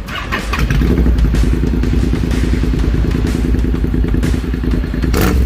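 Honda X-ADV 750's parallel-twin engine running through a Yoshimura R-11 exhaust, with a fast, even exhaust beat that gets louder about a second in and then holds steady. A brief noise near the end.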